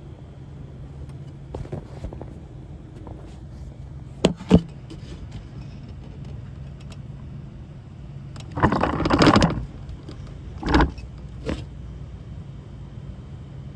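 Knocks and rustling of a phone being handled and covered close to its microphone: two sharp knocks about four seconds in, then a rough rustling burst of about a second and a shorter one soon after, over a steady low hum.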